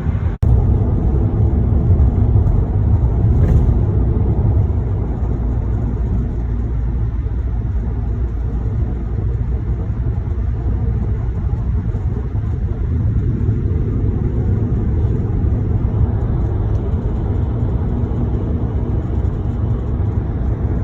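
Steady low road rumble of a car driving at speed, heard from inside the moving car, with a brief break about half a second in.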